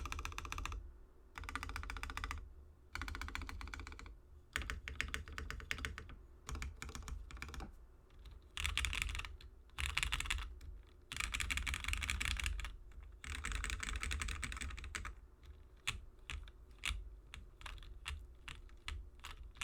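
Typing on a Frog TKL mechanical keyboard with lubed and filmed Cherry MX Black linear switches, an FR4 half plate and GMK keycaps. Rapid keystrokes come in runs of one to two seconds, with short pauses between them.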